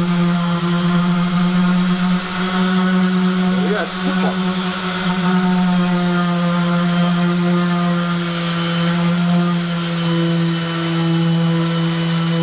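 Makita random orbit sander running at a steady speed while sanding a plywood panel, a constant even tone with the pad rubbing on the wood. It runs smoothly and quietly, without the dust extractor switched on.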